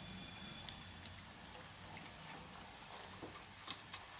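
Small semolina puris deep-frying in hot oil in a kadai, a faint steady sizzle. Two sharp clicks come near the end.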